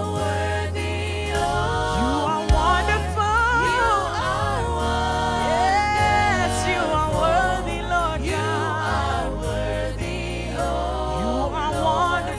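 Gospel music: singers with a band, a steady bass line and drum beat under wavering sung melody lines.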